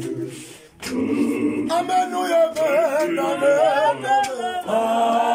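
A congregation singing a hymn without instruments. The massed voices drop away briefly about a second in, then a single high voice leads with a strongly wavering line, and the group comes back in near the end.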